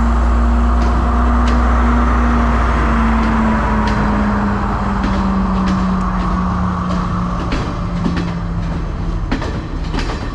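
Diesel passenger train pulling in close alongside: a loud, low engine drone with a steady tone that slowly falls in pitch. In the last few seconds the carriages roll past with a run of clicks from the wheels over the rail joints.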